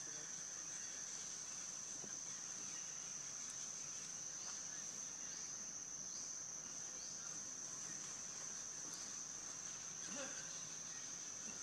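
Steady, high-pitched drone of an insect chorus, with a few short rising chirps in the middle and a brief lower call about ten seconds in.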